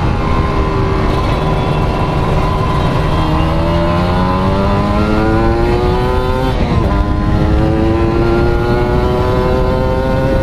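Kawasaki Ninja RR 150 two-stroke single-cylinder engine, fed by a Mikuni VM28 carburettor, pulling under acceleration while riding: its pitch climbs steadily, drops sharply at a gear change about two-thirds of the way in, then climbs again.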